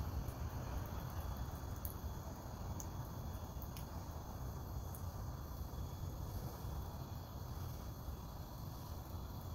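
Small gas Bunsen burner's flame burning with a steady low rushing sound while a cigar is held over it to light.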